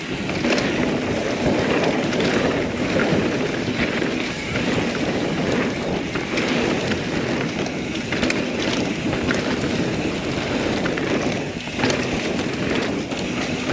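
Norco Sight mountain bike rolling down a dirt trail: a steady rush of wind over the microphone and tyres on dirt, with frequent short clicks and rattles from the bike over rough ground.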